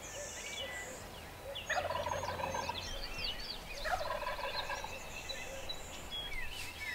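Wild turkey gobbling twice, about two seconds apart, over songbirds chirping throughout.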